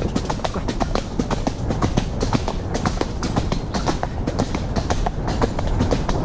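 Gypsy cob's hooves beating at a canter, with a fast, rhythmic clatter of many sharp clicks and knocks over a steady low rumble.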